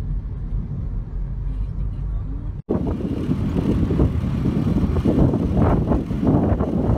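Road and wind noise from a moving vehicle rumbling on a phone microphone. It cuts out abruptly about two and a half seconds in, then comes back louder and gustier.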